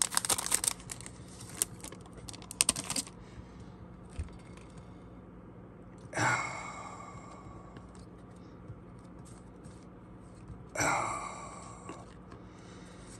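Foil trading-card pack wrapper crinkling as it is peeled open, for about three seconds, then quiet handling of the cards with small clicks and two soft swishes.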